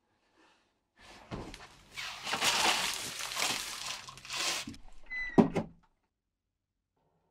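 A loud burst of rushing noise mixed with scuffling knocks, lasting about four seconds and ending in a heavy thump, after which it cuts off suddenly.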